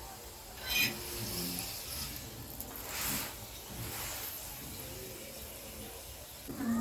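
Chapati cooking on a hot, oiled pan: a soft steady sizzle, with a few short louder hisses about a second in, around three seconds in and near the end.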